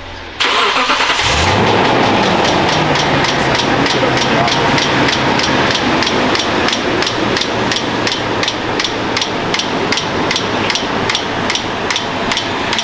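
Toyota Tundra engine started, catching about a second in, then running with a rapid, even ticking. The mechanic judges the tick most likely comes from a torn serpentine belt that is missing a rib and jumping from rib to rib on the pulleys.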